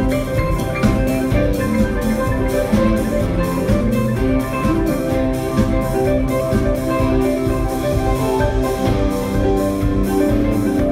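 Live jam band playing an instrumental passage: electric guitar, bass and keyboards holding sustained notes over drums, with a steady cymbal beat about three strokes a second.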